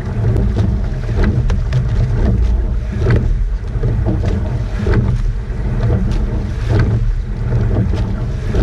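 Coxed rowing eight racing, with a stroke coming round roughly every two seconds: oars clunking in the oarlocks and blades catching the water over a steady rush of water along the hull. Heavy wind rumble sits on the boat-mounted camera's microphone.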